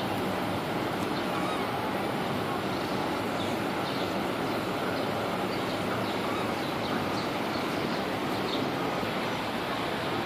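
Steady outdoor background noise with no clear single source, and faint short high chirps scattered through it.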